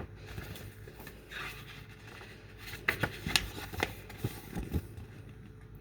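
Pages of a picture book being turned and handled: light paper rustling and several soft taps and clicks.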